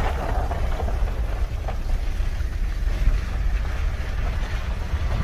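Car driving slowly on a dirt road, heard from inside: a steady low rumble of tyres and engine, with wind buffeting the microphone.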